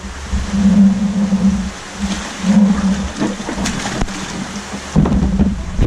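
Water pouring and splashing out of a tipped plastic cooler into a large aquarium tank, with a low hum that comes and goes.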